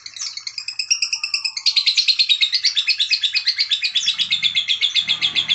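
Lovebird singing its ngekek: a long, fast, unbroken chattering trill of high notes, about ten a second, that grows louder about a second and a half in.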